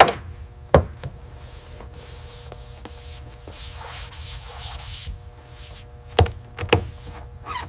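A run of hissy rubbing or scraping strokes in the middle, with a few sharp knocks near the start and again near the end, over a steady low hum.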